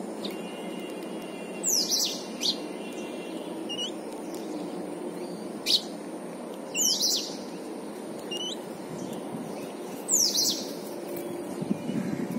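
Small birds giving short, sharp chirps, each a quick falling note, about seven of them spaced a second or more apart, over a steady low background noise.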